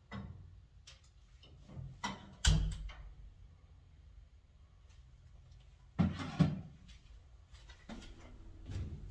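Kitchen clatter: dishes, utensils and cookware being handled and set down, with scattered sharp knocks. The loudest knock comes about two and a half seconds in, and two more close together come about six seconds in.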